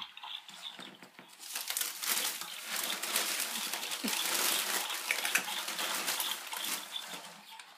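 Gift wrapping paper being torn and crumpled: a dense crinkling that builds about a second and a half in and fades near the end.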